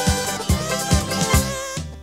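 Background music with a steady beat and a melody, fading out near the end.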